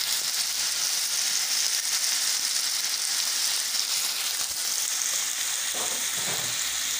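Meat and chopped onions frying in oil in a pot, with a steady sizzle, stirred with a wooden spoon that makes little knocking on the pot.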